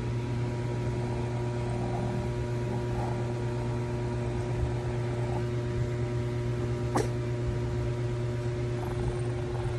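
Steady low electrical or mechanical hum with a few constant tones over it, and one sharp click about seven seconds in.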